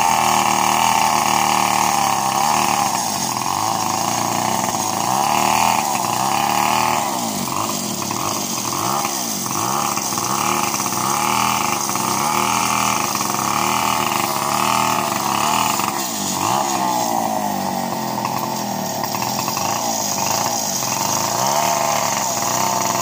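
Two-stroke chainsaw running, its engine speed rising and falling over and over.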